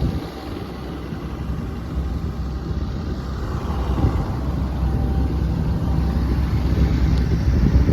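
The Cummins diesel engine of an XCMG XE210CU hydraulic excavator idling with a steady low hum, louder after about two seconds.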